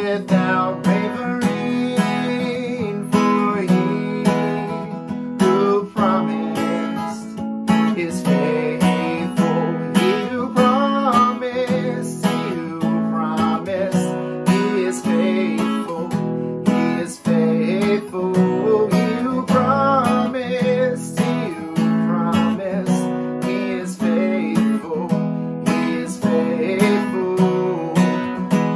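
Acoustic guitar strummed in a steady rhythm, with a man singing a worship song over it.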